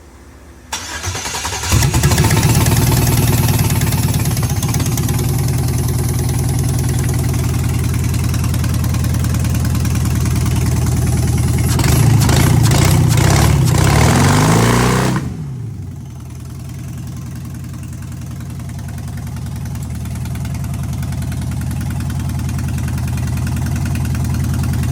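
A car engine is cranked and starts about two seconds in, then runs at a fast, loud idle. Around twelve seconds in the revs rise and fall, then drop to a quieter, steady idle. The engine is being run without its mass airflow (MAF) sensor.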